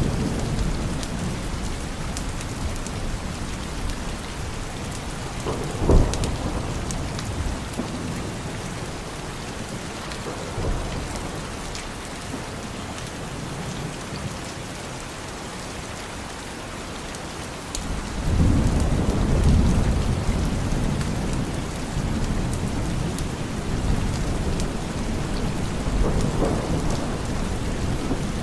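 Steady rain falling, with thunder: a sharp thunderclap about six seconds in, and a long low rumble of thunder that swells up about eighteen seconds in.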